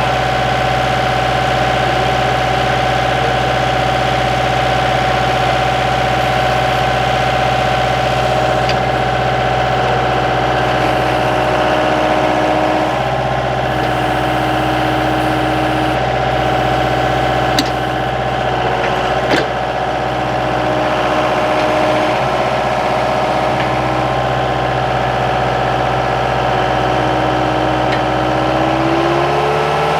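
Skid steer engine running steadily under an operator, its pitch rising near the end as it is revved up. Two short clicks fall in the middle.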